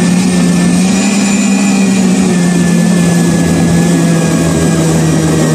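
Hamilton Beach countertop blender running steadily, churning a thick batter of oats, protein powder, milk and egg. Its motor hum sinks slowly in pitch as it runs.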